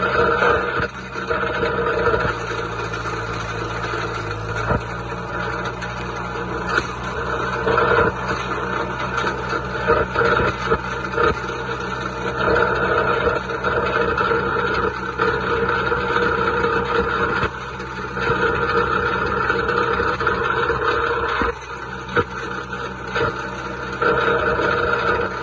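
John Deere 2130 tractor's three-cylinder diesel engine running steadily, with frequent short clicks and rattles over it.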